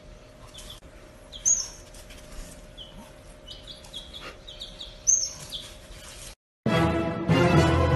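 A baby chick peeping: a run of short, high peeps, with two louder, higher cheeps about a second and a half in and again about five seconds in. The sound cuts out briefly near the end and music begins.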